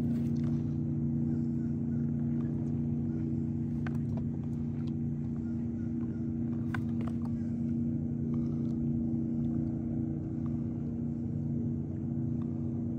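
Boat motor running with a steady low hum, with a few faint clicks about four and seven seconds in.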